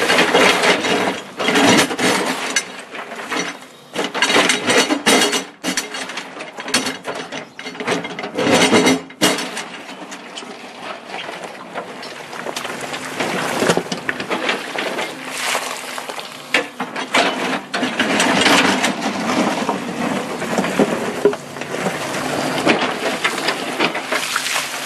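Steel excavator bucket raking through a pile of broken rock: stones clattering, knocking and grinding against the bucket and each other in irregular bursts, over a steady low hum from the machine. The clatter is busiest and loudest in the first ten seconds or so.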